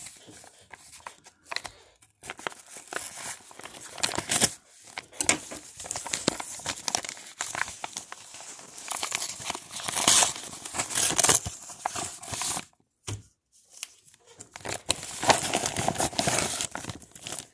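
Brown paper mailer envelope being torn open by hand: paper ripping and crinkling in irregular bursts, with a short pause about thirteen seconds in.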